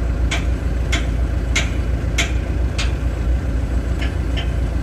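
Hammer blows on a steel pivot pin being driven into the hydraulic ram mounting of a Cat 215 excavator, a sharp knock roughly three times every two seconds, five strong blows and then a fainter one near the end. An engine idles steadily underneath.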